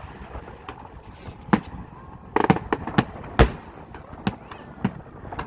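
Aerial fireworks bursting: about eight separate sharp bangs at irregular spacing, the loudest a little past halfway.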